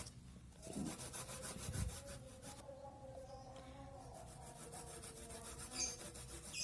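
Fresh ginger root being grated on a hand grater: repeated rasping strokes, with a short pause near the middle.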